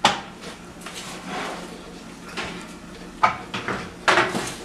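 Oven door opened with a knock, then a metal baking pan slid off the oven rack and set down on the gas stove's grate with a clatter a little after four seconds in.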